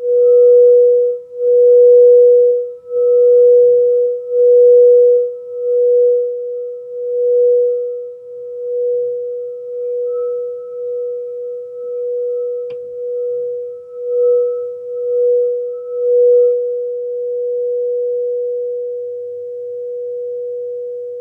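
Frosted crystal singing bowl being rimmed with a mallet: one pure, steady tone that swells and fades about once a second, strongest in the first few seconds. In the last few seconds the pulsing stops and the bowl rings on evenly.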